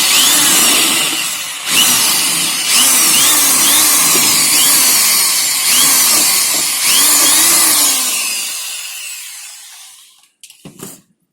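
Electric drill running in spurts as it widens a hole in the car's plastic air filter housing, its pitch rising and falling as the bit bites, with two brief dips early on. It then winds down to a stop, followed by a couple of faint clicks.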